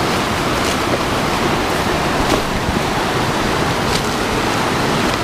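Fast mountain creek rushing over rocks in shallow rapids: a loud, steady rush of water.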